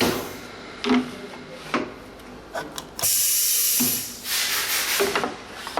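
PVC window-profile welding machine working: its mechanisms clack and knock several times, and about three seconds in a loud hiss of compressed air sounds for about a second before fading.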